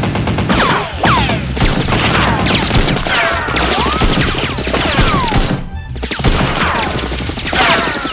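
Movie-style gunfire sound effects laid over background music: rapid shots with many quick bullet whizzes that fall in pitch, above a pulsing bass.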